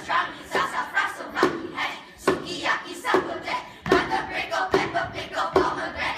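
A group of young performers making rhythmic vocal and hand percussion: sharp hits about two a second, mixed with voice sounds.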